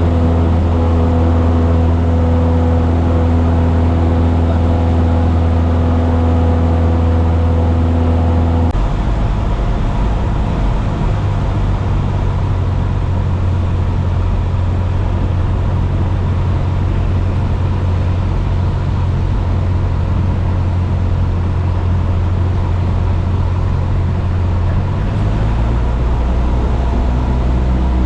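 Steady drone of a light airplane's piston engine and propeller heard from inside the cockpit. The engine note changes abruptly about nine seconds in and again near the end: power changes for a touch-and-go landing.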